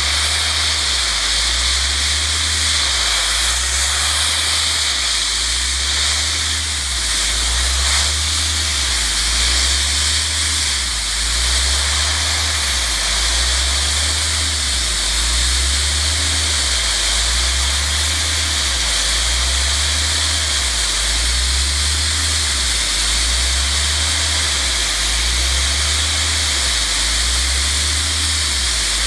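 Wet abrasive blast nozzle spraying continuously against an aluminum tanker shell, a loud steady hiss as paint and oxidation are stripped. A slow, even low throb pulses beneath it.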